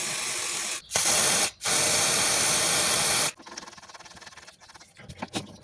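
Pressurised spray hissing hard in three long bursts with short breaks between them, cutting off sharply a little past halfway, followed by faint clicks of tool handling.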